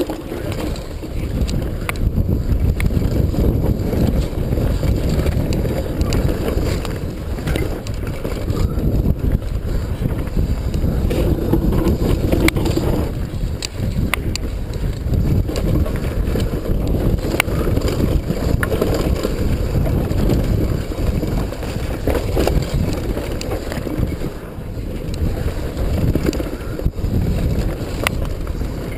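Wind buffeting the ride camera's microphone as a downhill mountain bike descends a rocky trail, a steady low rumble with many scattered clicks and knocks from the bike rattling over stones and roots.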